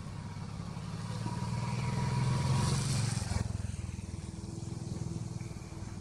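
A motor engine running, growing louder to a peak about two and a half seconds in and then fading away.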